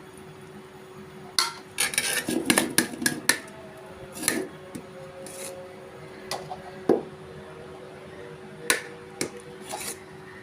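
Metal utensils clinking and scraping against a cooking pot: a quick flurry of clatter about a second and a half in, then single clinks every second or two.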